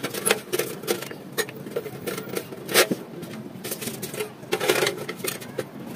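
A run of irregular light knocks and clicks, as of tools or small hard objects being handled, with the sharpest knock about three seconds in.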